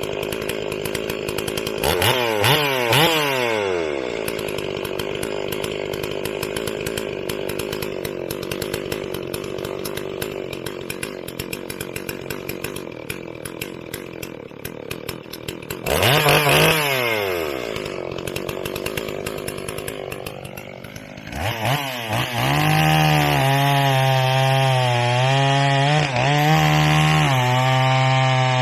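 Stihl 044 two-stroke chainsaw idling, blipped up to high revs and back down twice, about two seconds in and again about sixteen seconds in. Near the end it is run up to high revs and held there steadily.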